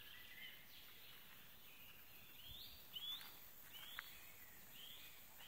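A songbird calling faintly: a string of short whistled notes that rise and then level off, about one a second, with a couple of faint knocks among them.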